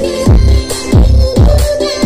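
Loud electronic dance music for a dance-remix sound check, played through a large outdoor sound system with a 16-subwoofer stack. Deep bass kicks come about twice a second, each dropping in pitch, under a repeating synth line.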